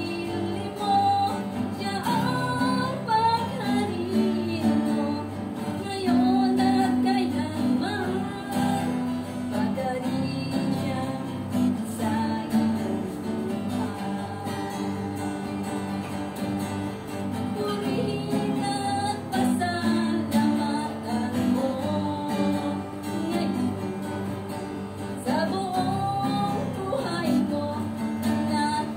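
A woman singing a slow song while strumming an acoustic guitar.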